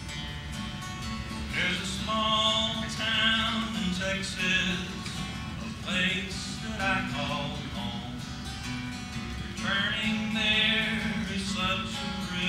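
Acoustic guitar played live, fingerpicked and strummed, with a man's singing voice coming in about a second and a half in and carrying a song over it.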